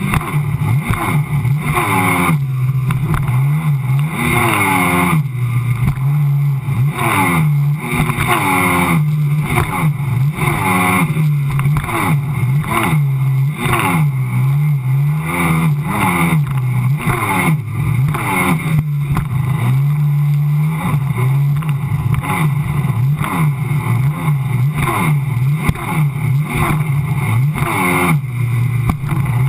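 Sea-Doo personal watercraft engine running hard at speed, its pitch rising and falling over and over, with rushing water and spray.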